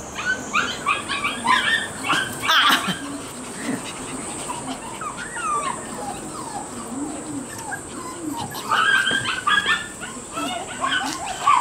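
Shiba Inu puppies yipping and whining in quick, high-pitched bursts. The cries are busiest in the first few seconds and again near the end, with a few lower, drawn-out whines in between.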